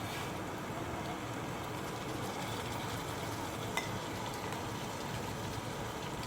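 Onion and ground-tomato masala sizzling steadily in hot oil in a pan, with one light click about four seconds in.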